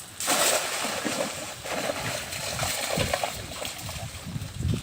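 Water splashing and sloshing in uneven bursts, with irregular low thuds.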